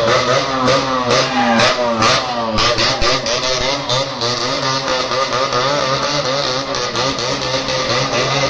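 Motorcycle engine revving up and down again and again, the pitch rising and falling in quick swells.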